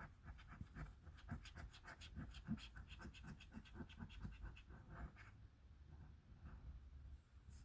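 Scratch-off lottery ticket being scratched in quick, repeated strokes, several a second, for about five seconds; it then goes quieter.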